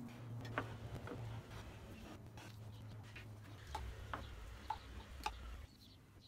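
Light scattered clicks and taps of gloved hands handling a glue cup and spreading stick, over a steady low hum that cuts off near the end.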